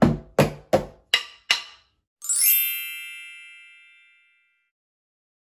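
Sticks drumming a steady rhythm on a cardboard box, about three strokes a second: a stroke on the side, two on the top, then two lighter clicks of the sticks against each other. About two seconds in, a bright chime rings out and fades over a couple of seconds.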